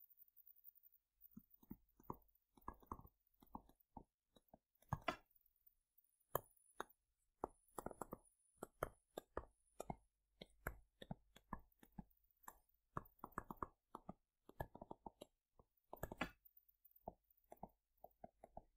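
Stylus tapping on a tablet surface while words are handwritten: a faint, irregular run of many short taps.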